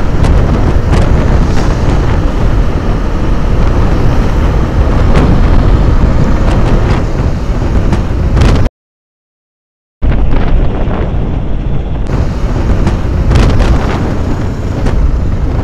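Wind buffeting a helmet-mounted microphone on a moving motorcycle: a loud, continuous low rumble with crackling gusts. About two thirds of the way through it drops out to total silence for about a second, then resumes.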